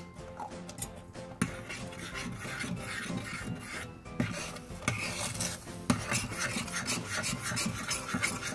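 Metal spoon stirring custard powder into milk in a stainless-steel pot, a continuous rasping scrape of repeated strokes against the pot, with a couple of sharper knocks.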